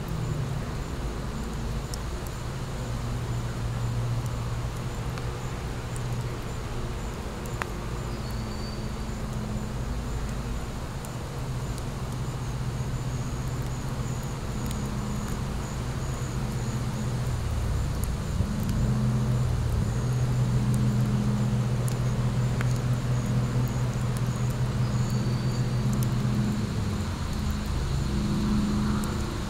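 Fire crackling in a fire pit with sparse sharp pops, under a steady low engine drone of road traffic that shifts in pitch a little past halfway through.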